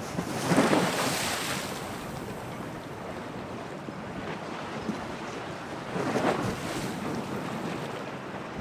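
Storm waves surging and splashing in strong wind, with wind buffeting the microphone. Two louder wave surges come through, one just after the start and another about six seconds in.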